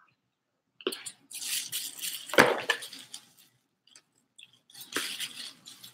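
Cloth towel rustling around a live sea urchin, with scraping and crunching as a knife works at its shell to open it. The loudest moment is one sharp crack about two and a half seconds in.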